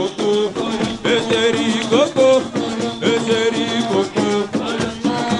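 Upbeat dance music with a quick, steady percussion beat under melodic lines.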